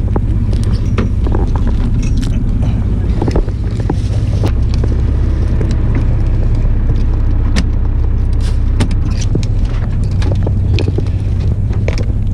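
A fishing boat's engine running steadily, a constant low drone, with scattered clicks and knocks of footsteps and handling on the steel deck.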